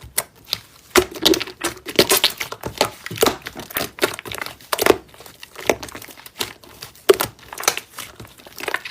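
Slime being squished and poked by hand, making irregular crackling clicks and pops.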